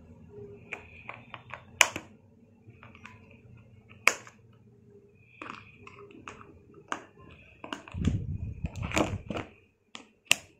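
Sharp clicks of hand cutters snipping the plastic ties that hold pliers to a cardboard blister card, several separate snips with the loudest about two and four seconds in. About eight seconds in there is a longer stretch of rustling and scraping as the card is handled.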